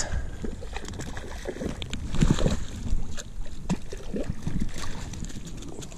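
Water splashing and sloshing at the surface as a hooked brook trout thrashes close to the bank while being played in on a fly rod, in irregular bursts.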